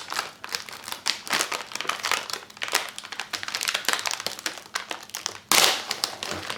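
Plastic Oreo cookie package crinkling as it is handled, with quick irregular crackles and a louder rush of rustling about five and a half seconds in.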